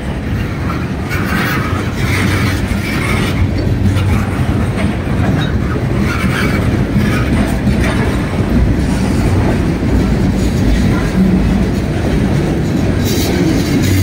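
Freight train cars, boxcars and tank cars, rolling steadily past close by, their steel wheels running on the rails.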